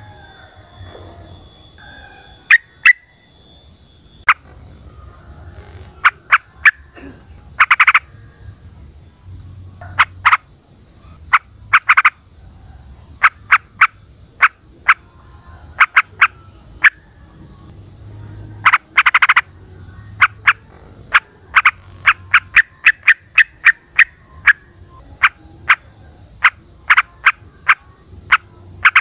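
Short, sharp animal calls repeated in irregular runs, a few held a little longer, over a steady high-pitched insect buzz.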